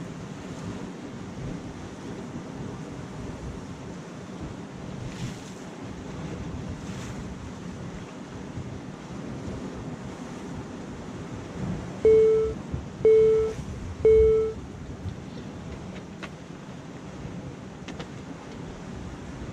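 Sea waves washing against the rocks, with wind buffeting the microphone. About twelve seconds in come three short, evenly spaced beeps, about a second apart.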